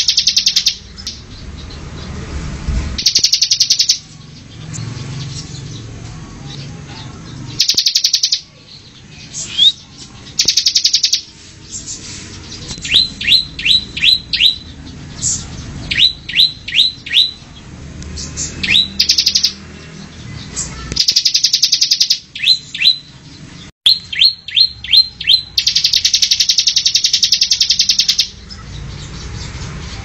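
Ciblek (a prinia) singing: repeated harsh, rapid rattling trills about a second long (the 'ngebren' song), alternating with quick runs of four to six short, sharp rising whistles.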